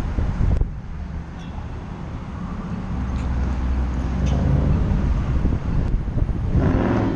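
City street traffic: car engines running and vehicles driving across the intersection, loudest as one passes near the end. Wind buffets the microphone for the first half second.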